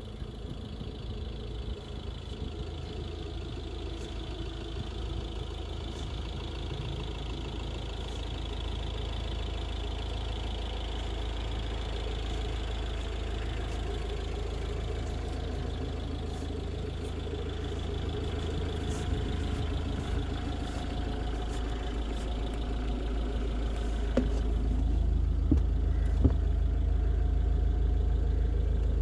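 Fiat Ducato 130 camper van's diesel engine idling steadily, getting louder toward the end, with a few light clicks near the end.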